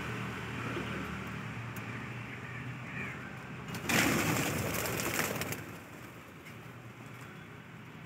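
Small cage birds (budgerigars and finches) calling and chirping in an aviary, with a loud noisy burst about four seconds in that lasts a second and a half before the sound drops quieter.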